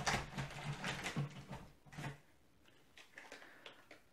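Crinkling of plastic-foil beef snack wrappers and rustling of a cardboard box as a handful of packets is lifted out: busy for the first two seconds, then fainter scattered rustles.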